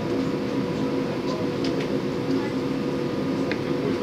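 Steady electric hum and low rumble inside a tram, with a few faint ticks.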